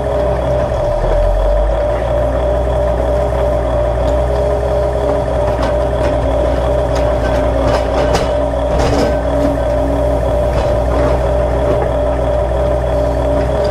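Huina RC excavator running steadily as it digs, a constant engine-like hum with a high whine, with a few clicks and scrapes of the bucket against dirt and stones about halfway through.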